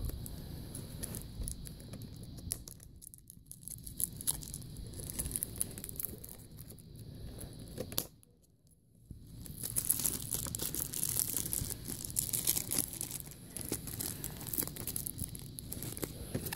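Plastic shrink-wrap being torn and peeled off a VHS tape box by hand, with crinkling and crackling. It stops briefly about eight seconds in, then resumes as denser, louder crackling.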